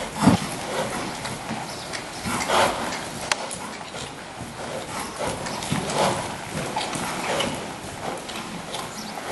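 Hooves of a Dutch Warmblood (KWPN) gelding striking the sand footing of an indoor riding arena as it trots under saddle, a run of soft hoofbeats with a few louder ones.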